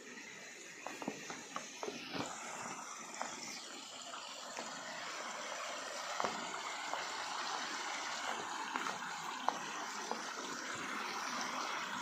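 Small forest stream running over rocks, growing slowly louder, with a few light knocks and clicks in the first half.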